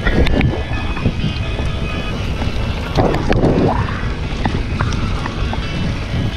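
Wind buffeting the microphone of a mountain bike descending a rough trail, with steady low rumble and frequent sharp clicks and rattles from the bike over the ground. A louder rushing swell comes about three seconds in.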